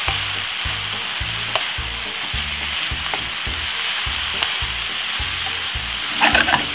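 Minced beef and chopped vegetables sizzling in a hot frying pan while being stirred and turned with a wooden spoon.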